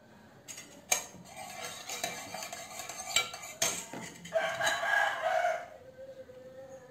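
A plastic spatula scraping and knocking against a metal mixing bowl while folding whipped sponge-cake batter, with several sharp clicks. A long pitched call sounds in the background, loudest in the second half.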